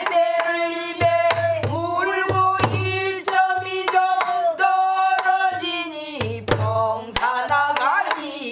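A woman singing pansori in Korean with long held notes that bend in pitch, accompanying herself on a buk barrel drum: sharp stick strokes and low hand thuds fall every half second to a second under the voice.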